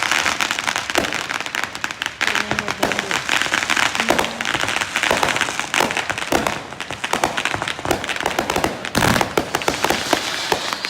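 Fireworks going off: a dense, continuous crackle of rapid pops, with a louder burst about nine seconds in.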